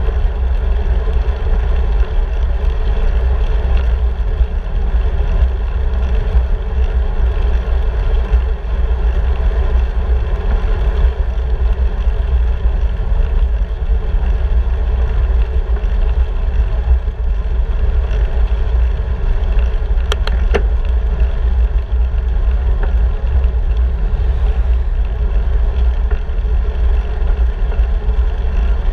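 Steady wind rushing over the microphone of a handlebar-mounted camera on a moving bicycle, a heavy low rumble with hiss above it. A few brief clicks sound about two-thirds of the way through.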